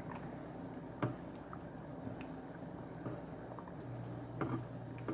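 Thick spinach soup cooking in a saucepan over a medium flame: faint soft squelches with a few light clicks, two of them a little more distinct, about one second in and near the end.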